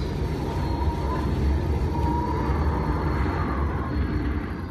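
Storm-wind sound effect played over loudspeakers for a tornado: a steady rumble with faint wavering whistles, beginning to fade out near the end.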